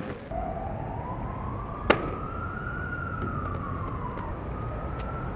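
A siren wailing in one slow rise and fall over a steady low rumble, with a single sharp knock about two seconds in.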